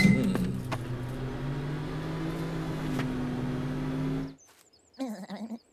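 Electric kitchen appliance starting with a short beep, then running with a steady hum for about four seconds before cutting off abruptly. A brief vocal murmur follows near the end.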